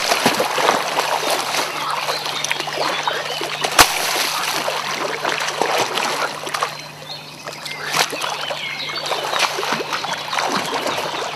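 Hooked wels catfish thrashing at the water surface beside a boat, with repeated splashing and slapping water. There is one sharp knock about four seconds in, and the splashing eases for a moment around seven seconds before picking up again.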